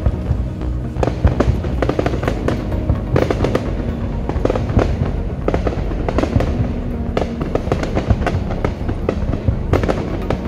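Aerial fireworks bursting in a dense, unbroken run of sharp reports and crackle.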